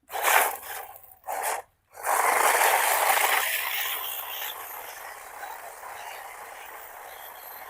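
Brushless 4WD RC off-road car driving on rough ground: two short bursts of throttle with scraping from the tyres and drivetrain, then a longer run whose scraping, gear-like noise slowly fades as it moves away.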